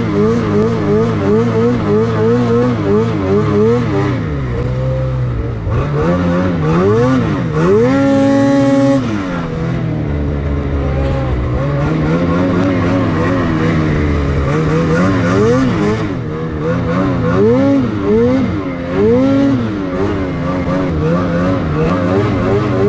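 Lynx Boondocker snowmobile's 850 E-TEC two-stroke engine under way in deep snow, its revs rising and falling over and over as the throttle is worked. It is briefly held high and steady about a third of the way through.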